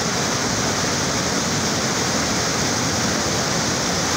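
Muddy floodwater from a river in spate pouring over a weir in a steady rush.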